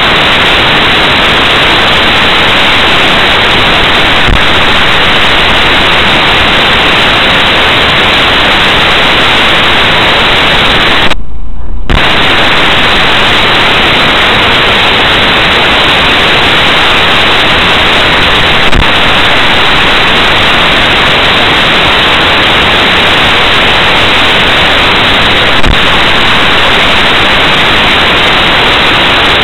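Loud, even hiss of noise on a low-quality dashcam's audio track, which drops out for about a second around eleven seconds in; a few faint clicks stand out from it.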